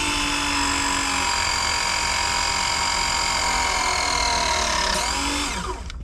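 Milwaukee cordless press tool's motor running steadily as its jaws crimp a press fitting onto a copper refrigerant line, the pitch sagging slightly under load, then winding down about five seconds in as the press cycle ends.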